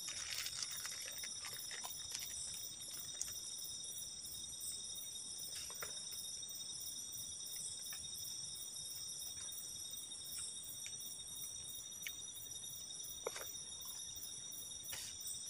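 Night-time forest insect chorus: several steady, high-pitched trills, with a few faint clicks now and then.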